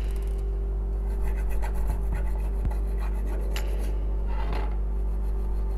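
Scratchy rubbing with a few short scrapes over a steady low hum.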